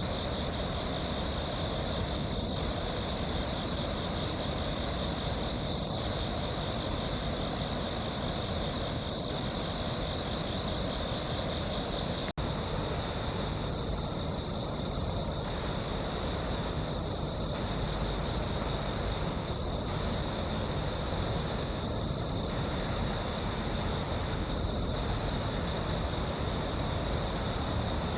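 Steady chorus of crickets or other singing insects, a continuous high trilling, over a low rumble of distant traffic. The sound cuts out for an instant about twelve seconds in.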